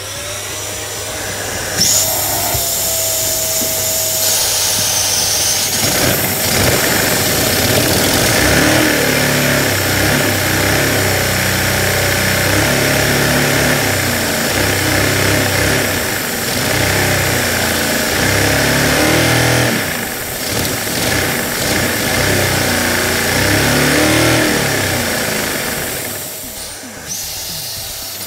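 Lego inline two-cylinder vacuum engine running and clattering as it spins a Lego centrifugal tachometer. It comes up at the start, grows louder about two seconds in, its speed drifts up and down, and it dies away near the end.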